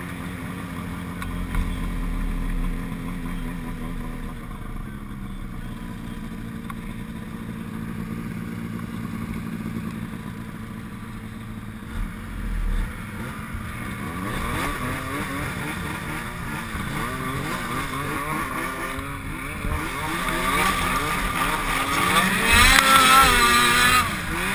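Snowmobile engines running steadily at idle, then revving with rising and falling pitch from about halfway through as the sleds pull away, loudest in a rising rev near the end.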